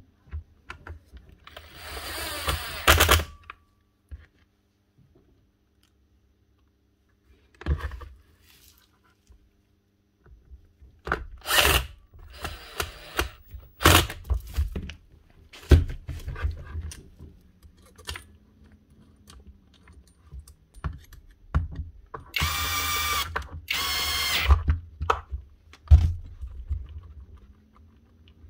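A power screwdriver running in several short runs of a second or so, driving screws into the trimmer's plastic housing. Sharp clicks and knocks of parts being handled fall between the runs.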